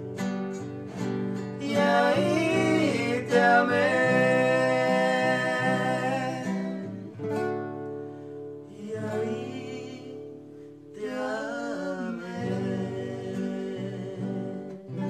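A man singing a slow ballad in Spanish, with long, held notes, accompanied by an acoustic guitar. The voice thins out about halfway through while the guitar carries on, then comes back fuller near the end.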